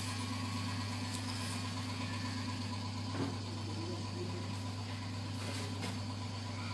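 Electric hair clippers running with a steady low buzz, and a couple of light knocks.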